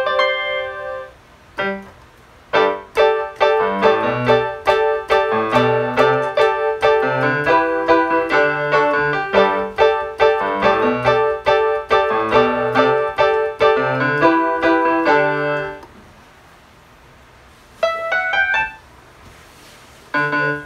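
Casio CTK-240 electronic keyboard played: a busy melody with chords over a bass line, breaking off about three-quarters of the way through, then a few more notes and a fresh start near the end.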